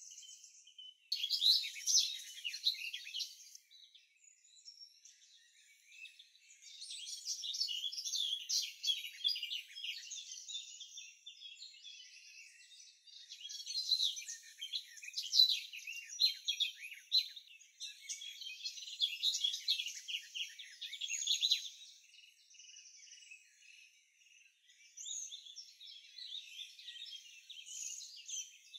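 Thin, high-pitched bird chirping in bursts of a few seconds each, about five of them with short quiet gaps between.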